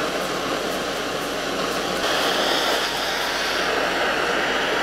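Handheld gas torch flame burning with a steady hiss, which turns brighter about two seconds in.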